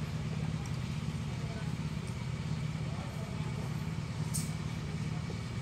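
A steady low hum, with a short splash about four seconds in as catfish thrash at the water's surface in a plastic barrel.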